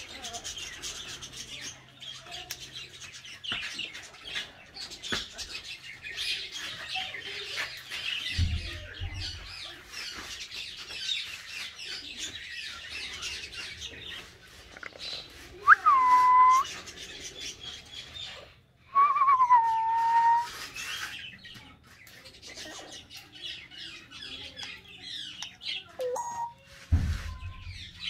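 Aviary full of birds chirping continuously, with two loud, clear whistles from an African grey parrot about halfway through: the first sweeps up and is held, the second slides down and levels off. Two dull low thumps, one before and one near the end.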